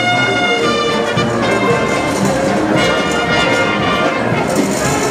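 Brass and orchestral music playing steadily, with held notes that change every second or so.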